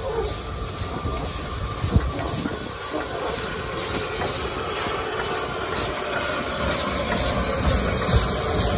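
Narrow-gauge steam locomotive moving slowly past at close range: hissing steam over a low rumble of the wheels on the rails, with a regular beat about two to three times a second. There is a sharp clank about two seconds in.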